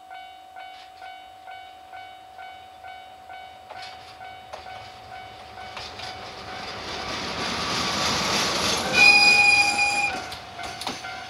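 A DE10 diesel-hydraulic locomotive hauling a container freight train approaches, its engine and wheel noise building steadily. It gives one short horn blast, about a second long, as it passes about nine seconds in, and then the container wagons roll by with clicks over the rail joints. Under the approach, a bell dings steadily about twice a second.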